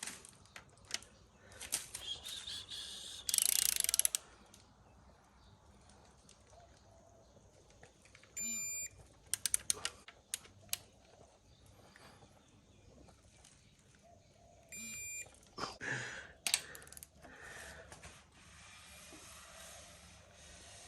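Scattered clicks and clinks of hand tools on engine parts during tensioning with a small tension wrench, with a short hissing rush about three seconds in. Two short electronic beeps, about six seconds apart.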